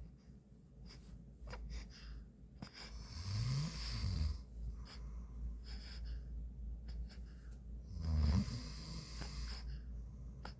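A man snoring in his sleep: two loud, low snores about five seconds apart, the first rising in pitch about three seconds in, the second the loudest near eight seconds in, with faint clicks between.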